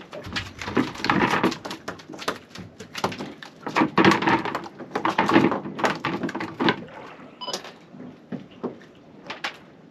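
Freshly caught mackerel flapping and knocking against the boat, a rapid irregular run of knocks and slaps that thins out after about seven seconds.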